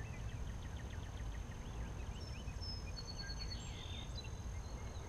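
Quiet outdoor ambience: faint, scattered small-bird chirps over a low steady rumble, with a thin steady high tone throughout.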